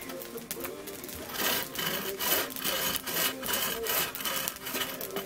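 Wooden-framed bow saw cutting through a log with quick back-and-forth strokes, each stroke a rasp of the teeth in the wood.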